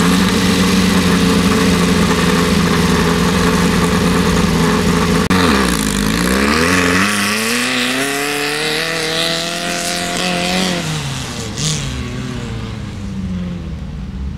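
Off-road race buggy's engine held at steady revs, then about five seconds in the pitch dips and climbs as the buggy sets off, revving up in a long rise. The revs drop near the end and the sound fades as the buggy pulls away.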